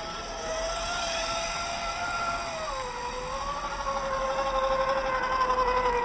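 Electric motor and gears of a radio-controlled scale crawler truck whining steadily as it drives through a shallow creek. The whine drops in pitch about three seconds in as the throttle eases, then holds, and grows louder as the truck comes closer.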